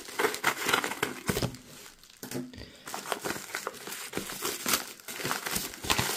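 Parcel packaging being torn and crinkled by hand as it is opened, in irregular rustles and crackles with short pauses.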